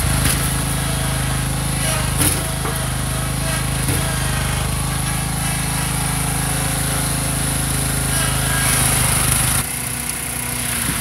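Dixon zero-turn riding mower's engine running steadily, with a couple of brief knocks. About nine and a half seconds in it gives way to a walk-behind push mower's engine running.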